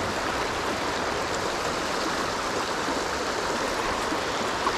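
Fast, shallow river water rushing steadily over a shoal.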